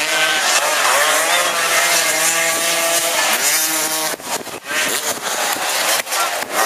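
A racing engine running hard, its revs rising and falling, with a short drop in level about four seconds in.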